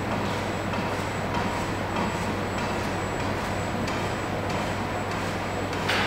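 Steady mechanical hum with faint ticks about every half second and one louder click near the end.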